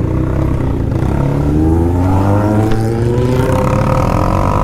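BMW R1200 GS's flat-twin boxer engine pulling away from a stop. Its note holds steady at first, then rises steadily from about a second in as the bike accelerates.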